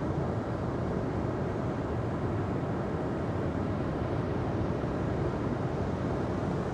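Ocean surf as a steady, even low rush of noise, with no separate wave surges or fire crackles standing out.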